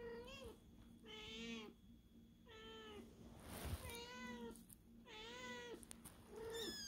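A Persian cat meowing repeatedly, six short, faint meows about a second apart, each rising and falling in pitch.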